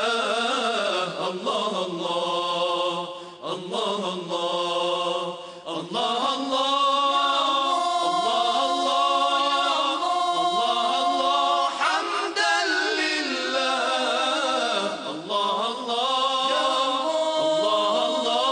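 Male a cappella chorus singing a devotional chant in close harmony, with several voices holding long, wavering notes. There are a few short breaks in the first seconds, then the notes are held unbroken.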